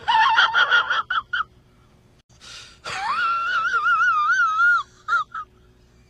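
A man's high-pitched whimpering cry: short gasping sobs, a pause, then one long wavering whine about three seconds in.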